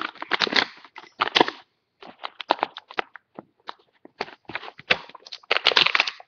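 Toy packaging being handled and opened: irregular crackling and rustling in short clusters with brief gaps.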